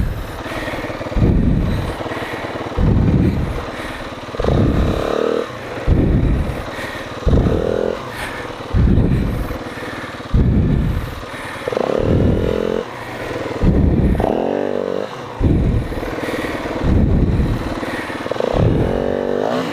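Dirt bike engine revving hard under load on a steep, rooty climb: about a dozen surges of throttle, roughly one every second and a half, several rising in pitch.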